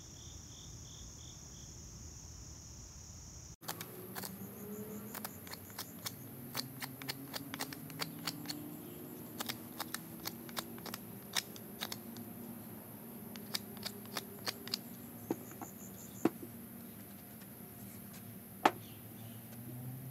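Insects, likely crickets, chirping in quick pulses. A few seconds in, after a break, there are many irregular sharp clicks and taps, like small wooden pieces being handled, with a couple of louder knocks near the end.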